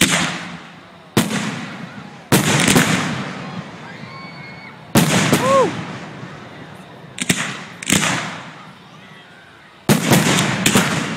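Aerial firework shells bursting, about seven loud bangs, each trailing off in a long rolling echo. The last burst, near the end, is followed by a quick run of crackling pops.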